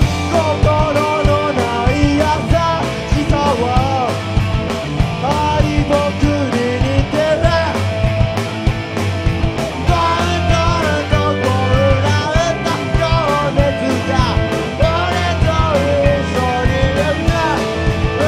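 Rock band playing live, with a singer over a steady beat.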